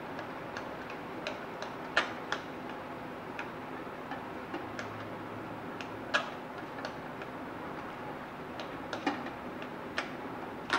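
Wire whisk clicking against a glass bowl while beating thick batter: irregular light ticks, with a few sharper clinks among them, over a steady background hiss.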